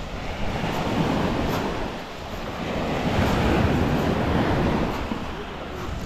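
Sea waves breaking on the shore, the rushing surf swelling about a second in and again more strongly a couple of seconds later.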